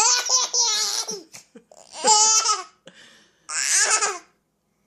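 Baby laughing in three high-pitched bursts of giggles.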